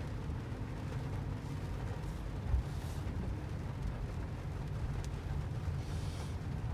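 Steady low road rumble from a Toyota Sienta being driven, with a single low thump about two and a half seconds in.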